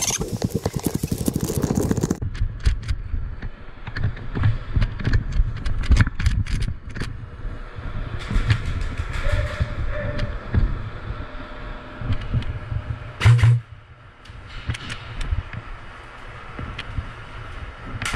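Handling and movement noise from a body-worn camera: scattered knocks, scuffs and footsteps over a low rumble, with one heavy knock about thirteen seconds in. A rapid run of sharp clicks comes in the first two seconds.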